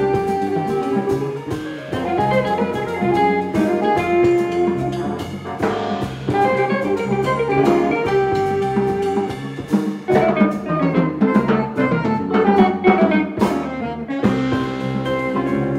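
A jazz quintet plays a minor blues in an odd 5-beat meter (3+2+3+2), with guitar, drums, saxophone, keyboard and bass, and held melody notes over the rhythm section.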